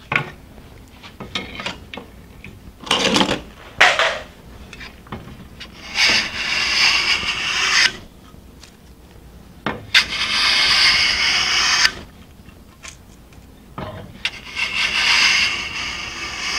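Scraper plane (a Bailey No. 7 body fitted with a stainless-steel scraper insert) scraping shavings from a wooden board. There are three long strokes of about two seconds each, a few seconds apart, and before them two shorter, louder strokes about three and four seconds in.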